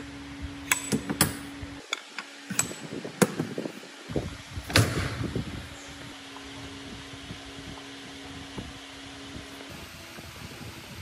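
Metal parts of an old planer clinking and knocking against a steel workbench as they are handled: about a dozen sharp metallic clicks and knocks over the first five seconds, the loudest near five seconds. A steady low hum runs underneath, and only faint ticks come after.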